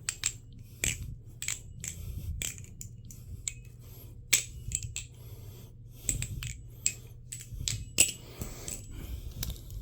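Balisong (butterfly knife) being flipped through the kiss goodbye trick: its metal handles and latch clack against each other in an irregular series of sharp clicks.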